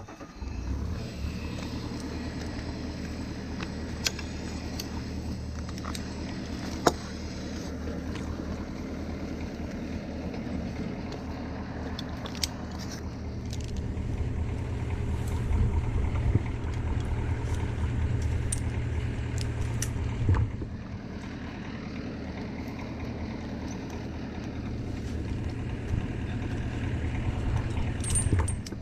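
An engine running steadily at low speed, getting a little louder for a few seconds midway, with occasional sharp clicks and knocks.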